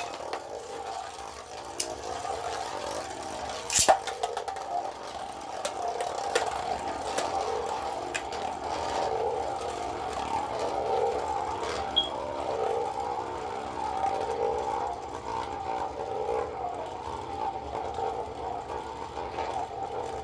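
Two Beyblade spinning tops, including a 3D-printed one, whirring and scraping around a plastic stadium in a battle, with sharp clacks as they collide, the loudest about four seconds in.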